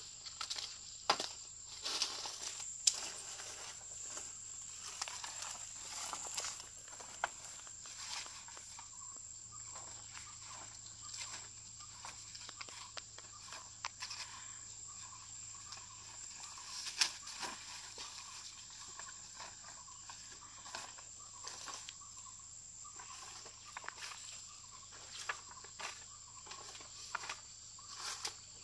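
Large broad leaves rustling and crackling as they are cut from their stalks with a small knife and handled into a stack, with scattered sharp snaps and a few louder cracks. A steady high insect drone runs underneath.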